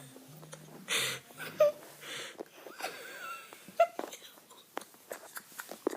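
A dog making short, breathy noises roughly a second apart, with a brief gliding squeal partway through and scattered small clicks.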